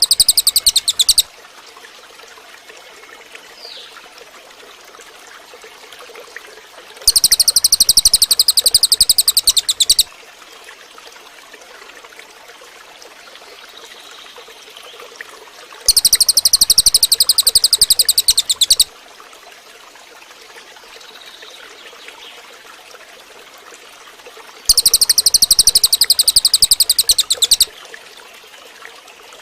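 Cililin bird song: loud, high-pitched, very rapid trills, each burst lasting about three seconds and repeated roughly every nine seconds, four times in all.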